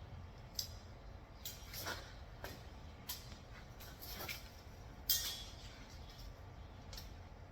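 Scattered light knocks and clinks of steel frame pieces being shifted and set in place, over a low steady hum.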